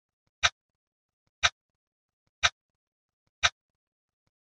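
Countdown timer's tick sound effect: four short, sharp ticks, one per second, each marking a second counted down.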